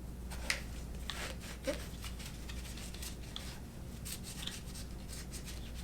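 Microfiber towel rubbing and wiping over the parts of a disassembled AR-15 rifle, with faint, irregular scratchy strokes and a few light clicks.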